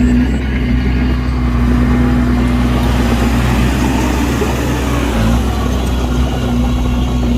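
Heavy diesel engine of earth-moving machinery running steadily, with a low rumble and a constant hum. The engine noise grows rougher and louder in the middle.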